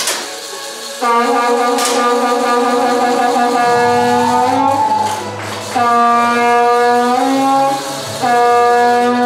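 Background music of long held notes, the chord changing every two to three seconds. Two sharp cracks cut through it, at the start and about two seconds in: 10 m air pistol shots.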